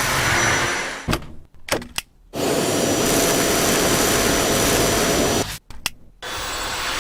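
Vacuum cleaner motor running with a steady rushing noise. It cuts out twice for about a second, with a few clicks in each gap, then runs steadily again.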